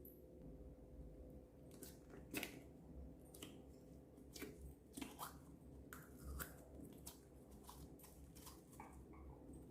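Slime being squished and stretched by hand, giving faint, irregular sticky clicks and small popping bubbles.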